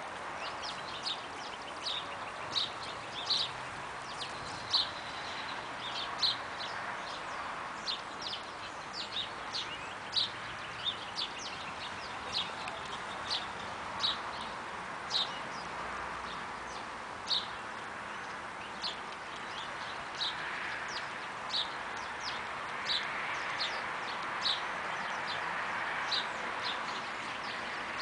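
A bird giving short, sharp chirps again and again, irregularly, about one or two a second, over a steady outdoor background hiss.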